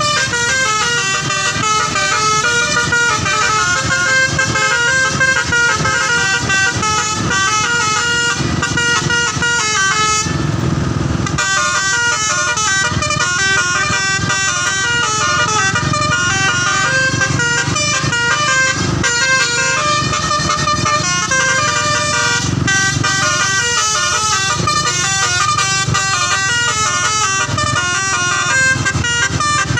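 Bus 'telolet' horn, a multi-tone horn, playing a fast melody that steps from note to note without pause. Its notes break off for about a second, a third of the way in, during a burst of hiss.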